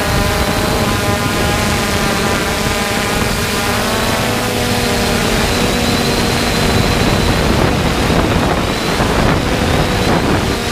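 3DR Solo quadcopter's electric motors and propellers droning steadily: a cluster of tones that drifts a little in pitch as the motors adjust speed, over wind rushing across the microphone.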